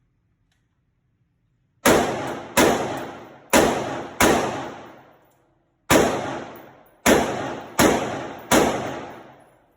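AR-15 rifle fired eight times in an uneven string of semi-automatic shots, with a short pause midway. Each shot is a sharp crack with a long tail that dies away over about a second.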